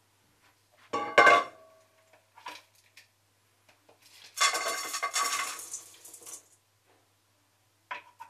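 Kitchen dishes and utensils being handled: a sharp ringing clatter about a second in, then about two seconds of rustling, scraping noise, and a short ringing clink near the end.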